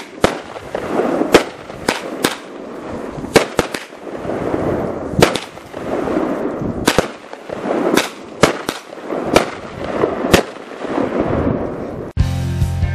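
A 200-gram, 16-shot consumer firework cake firing: a string of sharp bangs from the shells bursting, a second or so apart and uneven, with a hissing rush between them. Near the end the bangs stop abruptly and music takes over.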